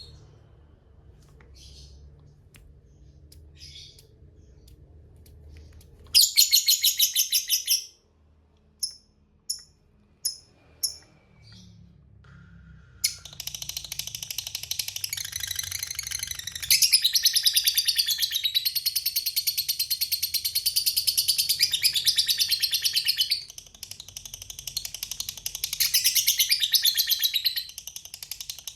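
Lovebird giving its 'ngekek': a fast, rattling chatter of rapidly repeated high notes. A short burst and a few sharp single chirps come first, then from a little under halfway through a long unbroken ngekek.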